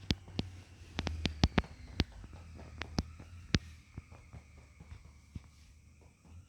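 A hand patting a baby's back to bring up wind: a run of sharp, uneven pats in the first few seconds, then only faint taps.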